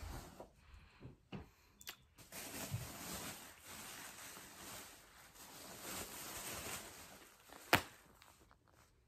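Rustling and handling of a boxed product's packaging, with a few light knocks early on and one sharp knock near the end.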